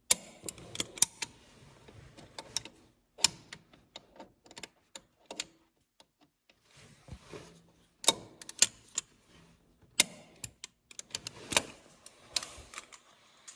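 Hand tools working the bolts on a tractor's drive coupler: irregular metallic clicks and clanks of a wrench, with a couple of short quiet pauses.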